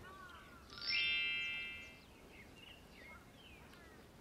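A bright, shimmering chime sound effect sweeps quickly upward about a second in and rings out over about a second. Faint small-bird chirps run underneath.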